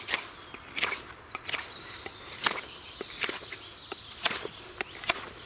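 Concave-ground fixed-blade bushcraft knife (Uldanov workshop 'Turist') shaving thin slivers off a piece of wood: about ten short, sharp slicing strokes at irregular intervals.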